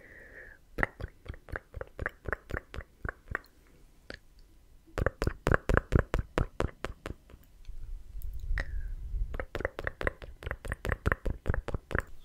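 Close-miked ASMR mouth sounds: wet tongue-and-lip clicks and 'tk tk' pops, about four or five a second, in three runs with short pauses between.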